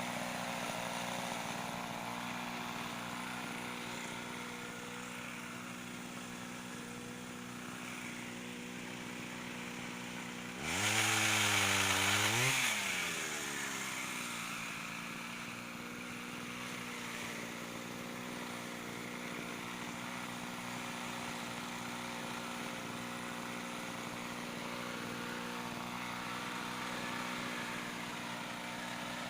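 Mitsubishi TL26 two-stroke brush-cutter engine powering a pole saw, idling steadily. About ten seconds in it is throttled up for roughly two seconds, then falls back to idle.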